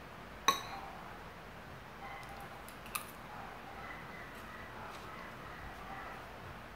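Metal spoon clicking against a plastic natto tray while scooping natto: one sharp click about half a second in, a softer one about three seconds in, and a few faint ticks between.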